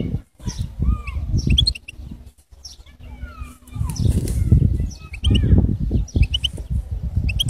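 European goldfinch singing: a twittering song of gliding, rising and falling whistles mixed with quick high notes, pausing briefly about two seconds in. Loud bursts of low rumble come and go under the song.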